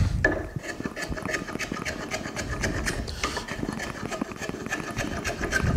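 Spokeshave shaving facets on a wooden spoon handle: a quick run of short scraping cuts, one stroke after another.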